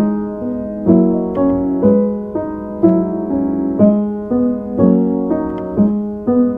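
Slow, gentle solo piano music, with chords and single notes struck about once a second and left to ring and fade.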